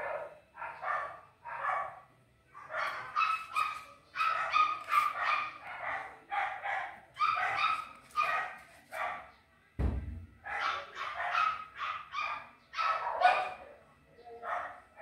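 Repeated short animal calls, one or two a second, with a single dull thump about ten seconds in.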